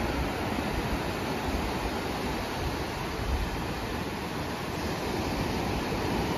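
Small waves breaking and washing up the shore of a sandy beach: a steady rushing with a low rumble underneath.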